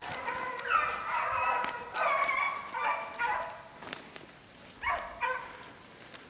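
Beagle hounds baying, several drawn-out, overlapping voices giving tongue as they run a scent trail. The cry thins out after about three and a half seconds, with two short last calls around five seconds in.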